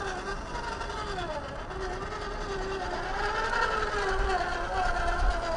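Kyosho Mini-Z 4x4 RC car's small electric motor and gears whining as it drives. The pitch dips, climbs and falls again with the throttle.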